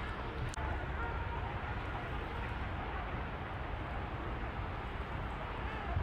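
Ruddy shelducks calling faintly over a steady low outdoor rumble.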